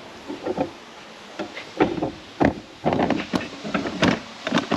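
A run of irregular knocks, clicks and clatter, a few to the second, from handling on or around the vehicle.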